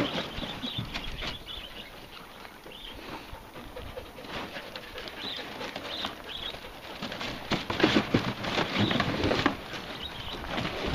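Cardboard boxes rustling, scraping and crumpling in irregular bursts as a Belgian Malinois puppy burrows and noses through a pit of boxes, searching for hidden pieces. The rummaging is quieter at first and loudest about eight to nine and a half seconds in.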